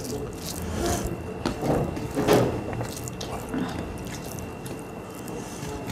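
Close-up eating sounds: chewing and lip smacks, with small irregular clicks as rice and curry are mixed and scooped up by hand from metal plates.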